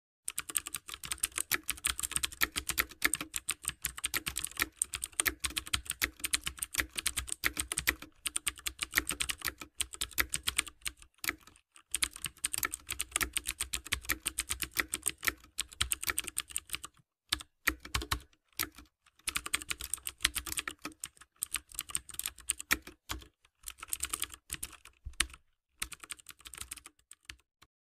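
Computer keyboard typing sound effect: rapid key clicks in runs, broken by short pauses.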